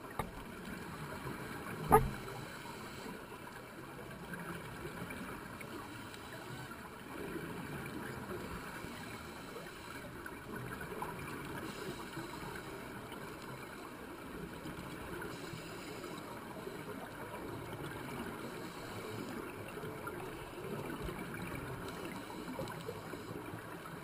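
Steady underwater ambient noise, a low hiss and rumble, with one sharp click about two seconds in.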